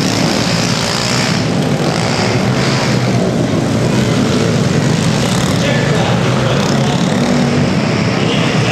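Small pit bike engines racing, running hard with a buzzing drone that wavers up and down in pitch as the riders throttle through the turns.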